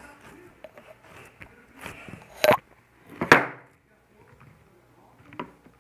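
Slime being squeezed and pressed close to the microphone, giving a few sharp wet pops and clicks over quieter crackling.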